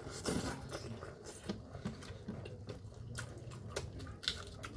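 A person chewing and eating close to the microphone: wet mouth sounds with scattered short clicks and smacks.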